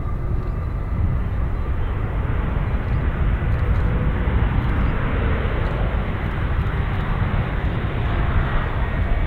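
Airbus A321neo airliner's jet engines running, a steady, even noise with a heavy low rumble that swells a little towards the middle.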